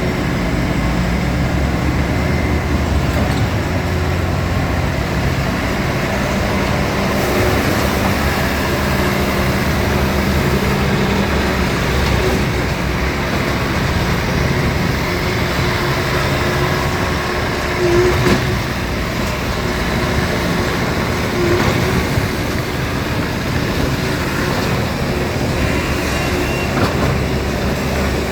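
Bobcat T450 compact track loader running steadily with its diesel engine, with a couple of brief louder knocks about two-thirds of the way through.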